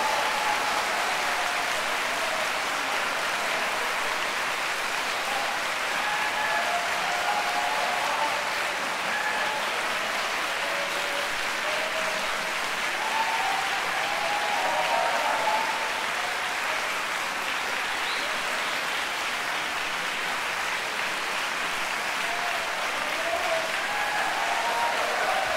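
Audience applauding steadily, with a few short cries from the crowd standing out above the clapping.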